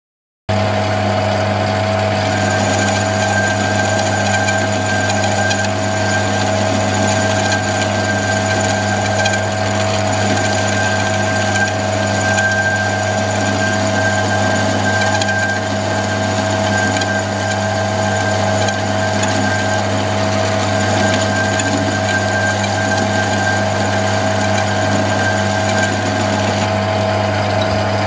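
A small machine running steadily with a constant hum, cutting in suddenly about half a second in.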